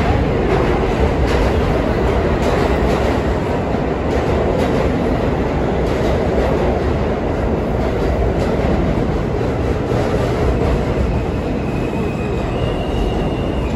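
R160B subway train pulling out along the platform, running steadily with its wheels clicking over the rail joints. A thin, high whine comes in near the end.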